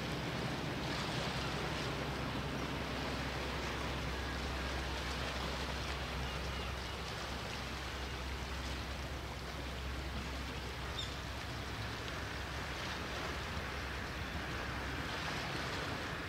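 Sea waves washing against the concrete wave-breaking blocks of a harbour breakwater, a steady noisy wash with a low rumble underneath. The wash swells briefly about a second in and again near the end.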